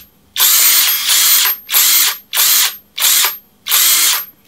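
BOSS cordless brushless impact wrench spinning free with a socket on, triggered in about six short bursts of under a second each, with a high whine as each burst starts.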